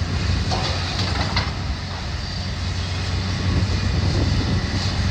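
Heavy demolition machinery's engine running with a steady low hum, with a few faint knocks about a second in.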